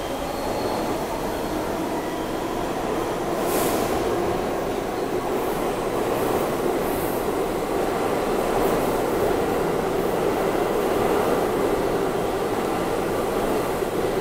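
R68 New York City subway cars running steadily past the platform, a continuous rumble of wheels on rail, with a short hiss about three and a half seconds in.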